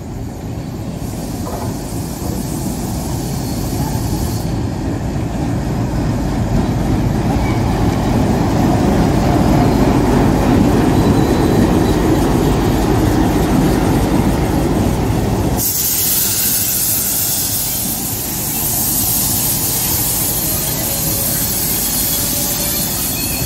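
Indian Railways locomotive hauling an express train into a station, its dense rumble growing louder as it passes close by. After about sixteen seconds the sound changes abruptly to a strong high hiss with wheel and brake squeal as the coaches roll past, slowing to a stop.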